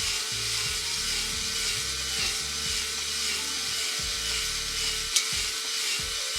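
A drill spinning a cylinder hone in an LS engine's cylinder bore: a steady motor whine with a grinding, hissing rasp from the hone against the cast-iron bore wall. It stops abruptly at the very end.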